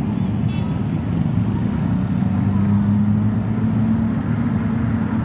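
Tour bus diesel engine running at low revs as the bus pulls slowly away, a steady low drone that rises a little in pitch partway through. No horn is sounded.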